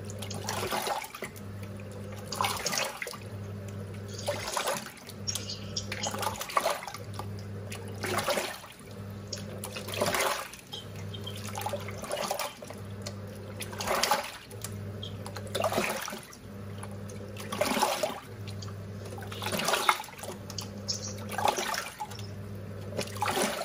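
Small top-loading washing machine agitating its rinse water. The pulsator motor hums in runs of about a second and a half, stopping briefly as it reverses, and the water splashes and sloshes in the drum with each stroke.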